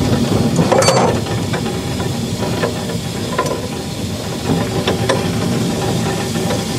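Steam hissing steadily from a 12-inch gauge 0-4-2 tank steam locomotive in steam, with a few short clicks and knocks scattered through it.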